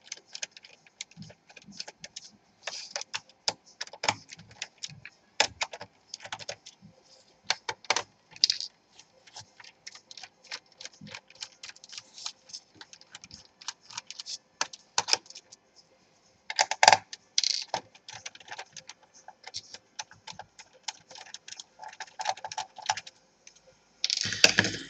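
Irregular light clicks and taps of a screwdriver turning out screws from a plastic laptop bottom case, with small knocks of hands and screws against the case. A louder handling noise comes near the end.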